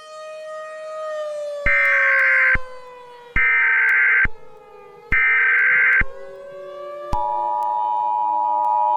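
Mock Emergency Alert System signal: a siren tone sliding slowly downward, under three loud buzzing data bursts of about a second each (the EAS SAME header), then about 7 s in the steady two-tone EAS attention signal starts and holds.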